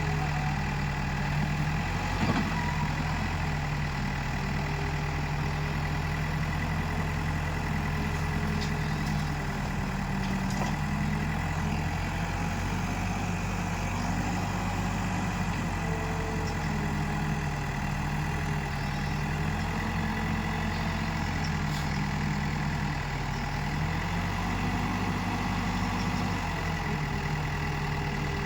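Backhoe loader's diesel engine running steadily under working load, its speed stepping up and falling back every few seconds as the hydraulics are worked, with a faint knock about two seconds in.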